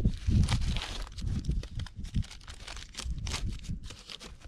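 Crinkling and rustling of a fabric stuff sack with small irregular clicks and knocks as a camping cook pot is handled inside it and worked out.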